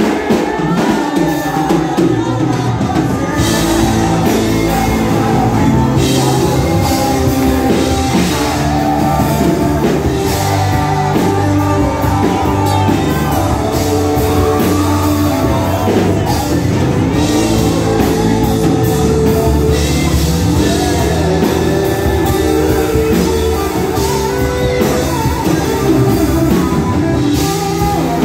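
Youth choir singing a Portuguese gospel worship song through microphones, backed by a live band with drum kit and bass; the music runs continuously at full level.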